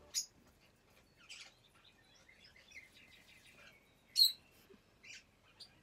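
Barred parakeet (lineolated parakeet) giving soft scattered chirps, with one short, sharp, high call about four seconds in.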